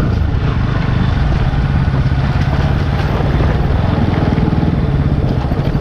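Bajaj Pulsar NS160's single-cylinder engine running at a steady low speed as the motorcycle is ridden off-road.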